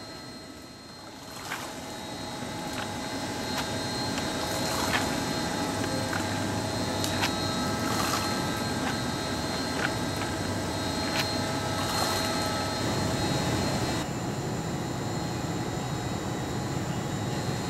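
Handfuls of corn bait thrown from a bucket into a river, landing on the water in brief spatters every few seconds, over a steady low rumble and hum.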